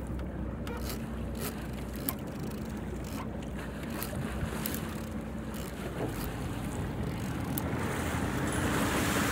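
Fishing boat's engine running with a steady low hum, with water washing along the hull and wind on the microphone; the water noise swells near the end. Scattered sharp ticks are heard throughout.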